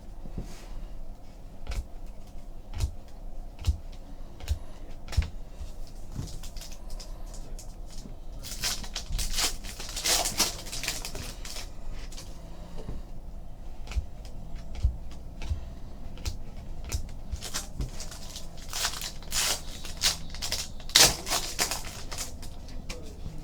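Trading card packs being opened and cards handled on a table: scattered light clicks and taps, with two louder stretches of crinkling wrapper rustle.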